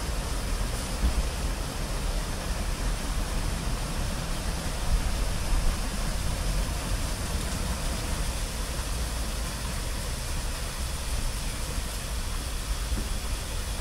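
Automatic rollover car wash running, a steady hiss of water spray and machinery with a low rumble underneath and a couple of slightly louder moments about a second in and about five seconds in.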